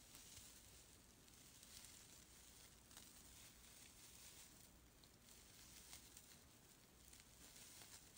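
Near silence: faint, soft rustling of fuzzy acrylic scrubber yarn being worked with a crochet hook, with a few faint ticks.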